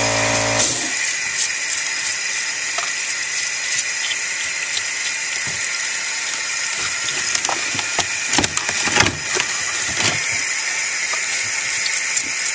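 Hose water running steadily onto a wet matrix rock in a plastic colander in a sink, with a toothbrush scrubbing the rock; a cluster of scrapes and knocks about two-thirds through. A humming motor cuts off just under a second in.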